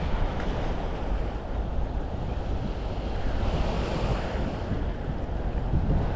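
Wind buffeting the microphone, a rough fluttering rumble over a steady outdoor rush of noise that swells slightly in the middle.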